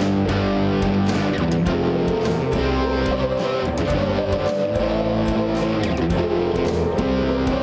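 Live worship band playing upbeat instrumental music: strummed electric guitar over bass, with a steady beat.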